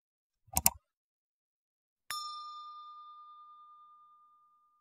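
Two quick sharp clicks, then a single bell-like ding that rings out and fades away over about two and a half seconds.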